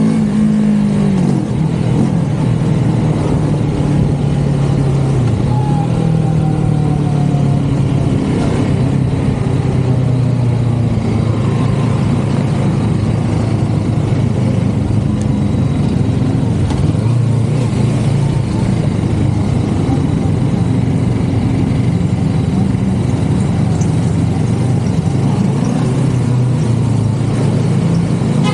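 CFMoto 650NK motorcycle's parallel-twin engine running while riding, its pitch shifting with the throttle near the start and again near the end, over a steady rushing noise.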